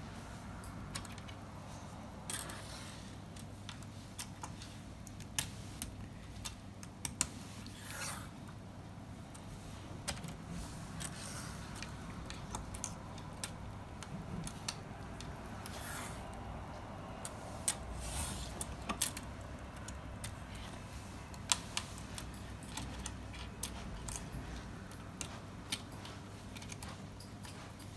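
Plastic Strandbeest kit leg pieces being handled, pressed and twisted together: irregular light clicks and rattles of hard plastic parts, over a faint steady low hum.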